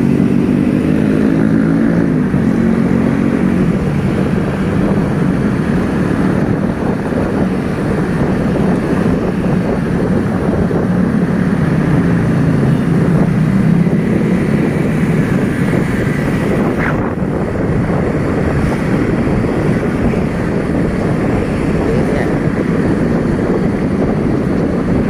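Motorbike engine riding through city traffic, rising in pitch as it pulls away near the start and again about halfway through, with wind buffeting the microphone.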